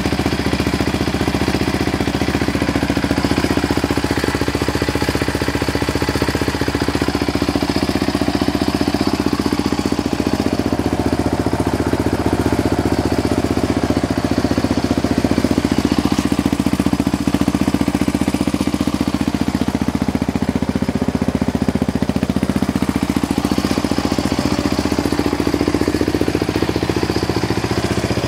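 2006 Yamaha Raptor 700R's single-cylinder four-stroke engine idling steadily.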